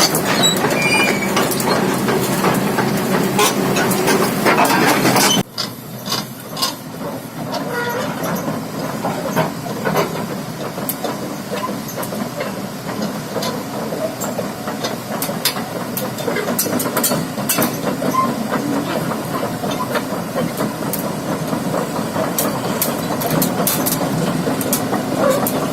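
Hitachi 330H hydraulic excavator running, a steady engine and hydraulic noise with scattered clicks and knocks. The sound drops abruptly about five seconds in and carries on quieter.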